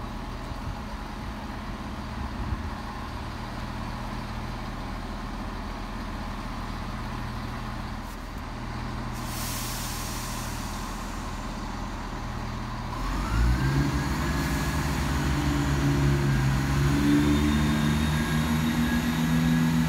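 Class 170 Turbostar diesel multiple unit idling at the platform, with a short hiss of air about nine seconds in. About thirteen seconds in its underfloor diesel engines rev up, growing louder, with a whine that rises in pitch and then holds steady.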